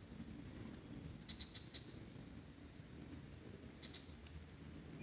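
A cricket chirping: short high chirps of a few rapid pulses each, about every two seconds, over a faint low steady rush.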